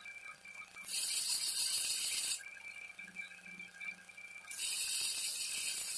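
Bench grinder's wire wheel scouring rust off small steel wrench parts in two harsh, hissing bursts, each about a second and a half long, about a second in and again past the middle. Between them the grinder runs with a steady hum.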